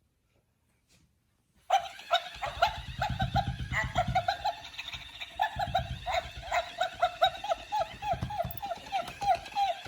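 A plush dog toy's squeaker squeaking rapidly, several short squeaks a second, as a miniature poodle chews and squeezes it, with dull thumps of mouthing and handling. It starts abruptly after a short silence.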